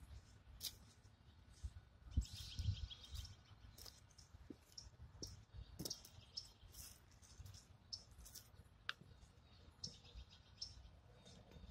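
Faint footsteps crunching through dry fallen leaves and twigs, with scattered short, high chirps and ticks.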